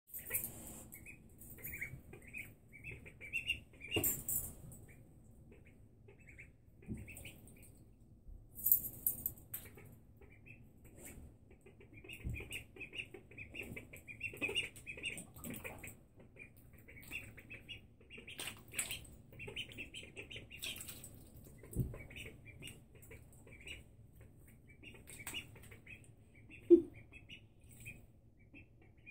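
Ducklings peeping in runs of short, high chirps while they paddle in shallow bathtub water, with a few brief splashes and one short, loud bump near the end.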